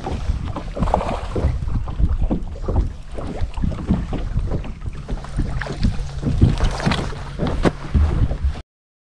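Wind buffeting the microphone on an open bass boat deck, with scattered knocks and clicks as an angler fights and lands a hooked bass. The sound cuts off abruptly near the end.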